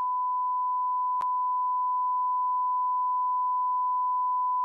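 Broadcast censor bleep: a steady single-pitch tone that replaces all other sound, with a brief click about a second in.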